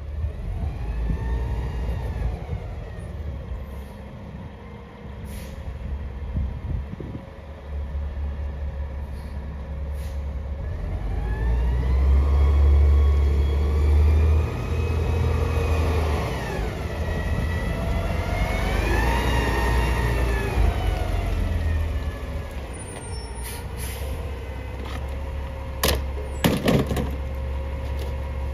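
Mack LEU CNG garbage truck pulling up: its natural-gas engine rumbles and its pitch rises and falls several times as it moves off and slows, and its air brakes hiss sharply near the end as it stops.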